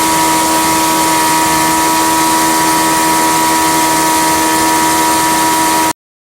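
Polaris Pro R's naturally aspirated four-cylinder race engine held steadily at high revs, in the 9,000 RPM range, giving a loud, even high-pitched drone. It cuts off suddenly about six seconds in.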